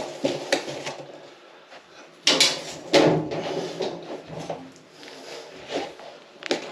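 Washing machine being shifted across the floor: a series of knocks and rattles, with two loud, heavy scrapes about two and three seconds in.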